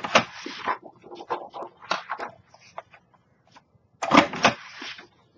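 We R Memory Keepers Lucky 8 paper punch pressed down twice, about four seconds apart, each press a loud clunk as it cuts through the paper. Smaller clicks and paper rustling come between the presses as the sheet is moved along the punch.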